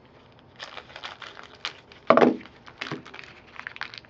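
Shiny plastic wrapper of a baseball card pack crinkling and rustling as it is cut open with scissors and the cards are pulled out, in a run of short crackles, with one louder knock about two seconds in.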